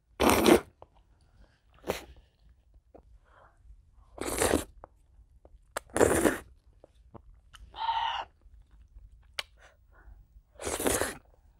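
Ramen noodles in a thick melted-cheese broth slurped loudly in short pulls, a handful of times, with quieter wet chewing and clicks between.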